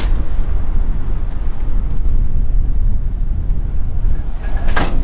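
Steady, loud low rumble of an outdoor street scene, with one short sharp clatter near the end.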